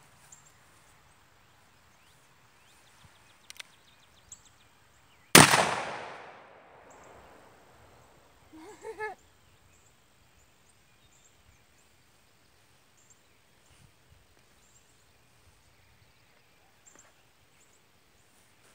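A single shot from a Ruger Old Army cap-and-ball revolver firing a 130-grain .36 conical in a .45 sabot over 35 grains of Triple Seven powder: one sharp crack about five seconds in that fades in a long echo over about two seconds.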